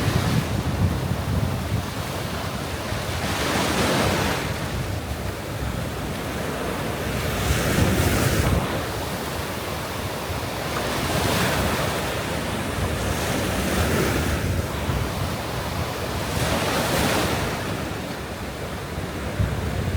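Sea waves breaking and washing up on the beach, a swell of surf about every three to four seconds, with wind rumbling on the microphone.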